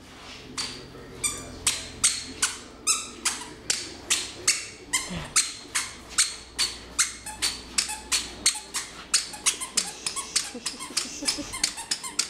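Toddler's squeaky shoes squeaking with each step as he walks, a steady run of short squeaks about two to three a second, coming faster near the end.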